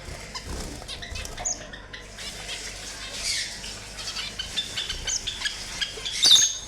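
A flock of small finches chirping, with many short, high calls overlapping and a louder burst of calls about six seconds in.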